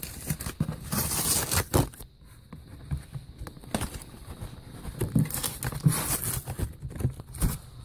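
A cardboard box being handled and its tape pulled and torn off: rasping and rustling, with a string of irregular small knocks and scrapes.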